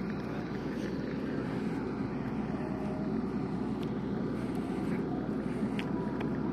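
Turboprop airliner's engine running on the apron, a steady rumble that grows slightly louder as the camera approaches the aircraft.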